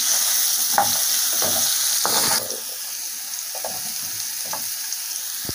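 Vegetables frying in oil in a frying pan, sizzling while a spoon stirs them, scraping and tapping against the pan. The sizzle drops quieter about two and a half seconds in.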